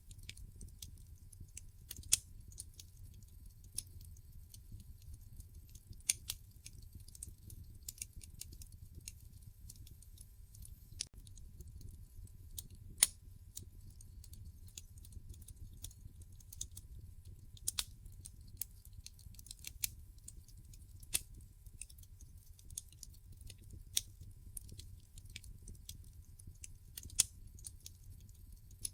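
Wood fire burning in a fireplace, crackling with irregular sharp pops and snaps, a few of them much louder than the rest, over a low steady rumble.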